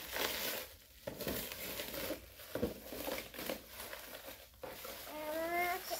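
Thin black plastic shipping bag crinkling and rustling in uneven bursts as it is pulled open and a boxed item is drawn out.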